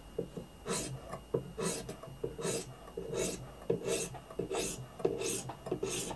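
Sharpening stone on a guided knife-sharpening system scraping along a CPR-steel knife edge in about seven short, even strokes. These are light passes to remove the burr from a convex edge.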